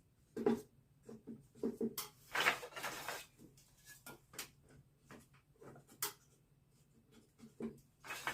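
Irregular light knocks and clicks of wooden beehive-frame parts being handled and fitted together, with a longer rustling scrape about two seconds in.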